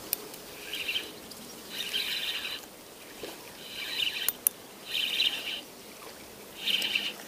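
A songbird singing, repeating short high phrases about once a second, with a couple of faint clicks partway through.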